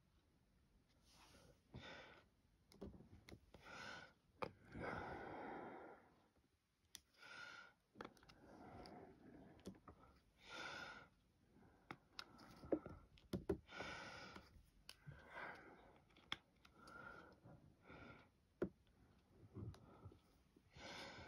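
Faint, scattered soft clicks and taps of a diamond-painting drill pen picking up resin drills and pressing them onto the adhesive canvas, with quiet breathing in between.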